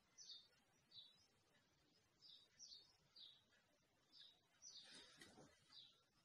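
Near silence, with faint bird chirps: short high calls repeating about twice a second. A brief faint rushing noise comes about five seconds in.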